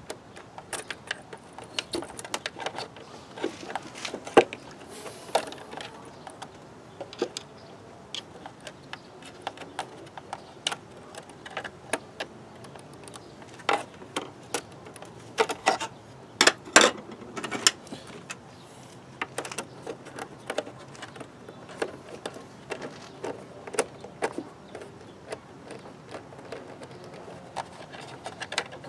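Irregular clicks, taps and rattles of plastic and metal intake parts being handled as a cone air filter and its mounting bracket are fitted into the airbox, with a few sharper knocks.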